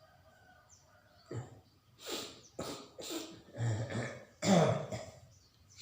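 A man coughing in a run of about six harsh coughs over some four seconds, the last ones the loudest. This is the cough of a cold.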